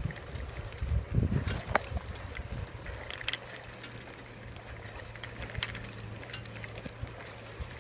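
Scattered clicks and rattles with short low rumbles, as of a ride along a paved path, over a low steady hum.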